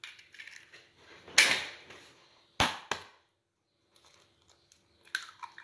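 Eggshells being cracked and broken open by hand over a glass measuring jug: a crackly crunch about a second and a half in, two sharp knocks close together about a second later, and a few smaller clicks near the end.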